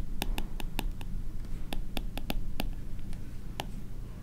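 Stylus tapping and clicking on a tablet screen while handwriting: an irregular run of short, sharp clicks over a low, steady hum.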